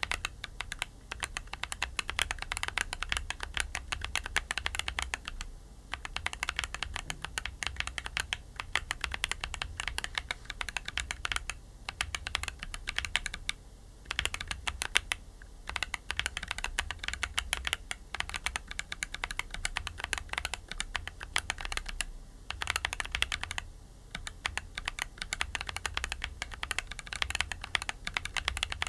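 Steady, fast typing on an aluminium MonsGeek M1 mechanical keyboard fitted with Akko V3 Creamy Purple Pro tactile switches and PBT cherry-profile keycaps: rapid key clacks with a few short pauses.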